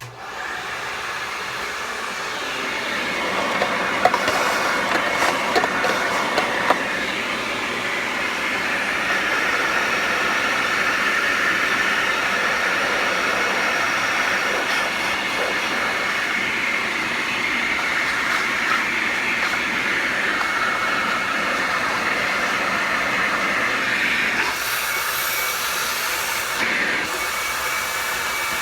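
A vacuum cleaner motor starts suddenly and runs steadily with a loud rushing whine, with a few rattling clicks about four to seven seconds in.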